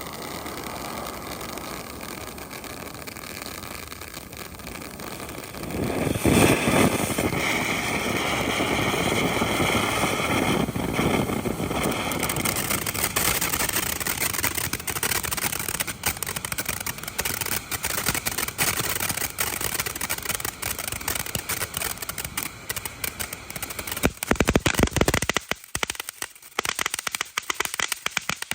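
Koi Pond consumer firework fountain burning: a steady hissing spray that jumps louder about six seconds in, then turns to dense crackling. There is a loud surge near the end, after which it thins to scattered crackles as it dies down.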